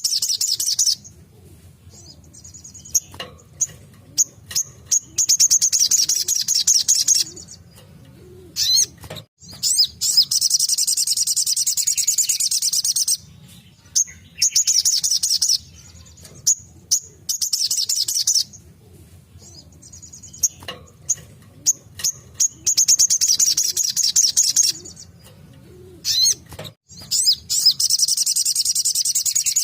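Crimson sunbird (sogok ontong) singing in rapid, high-pitched trilled bursts, each one to three seconds long, with short chirps and pauses between them. A faint low hum lies underneath.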